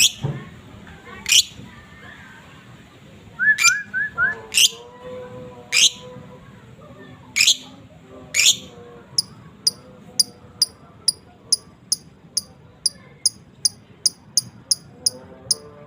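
Caged songbird calling: loud, sharp downward-sweeping chirps at irregular intervals with a quick four-note run, then settling into a steady series of short high chirps repeated about two to three times a second.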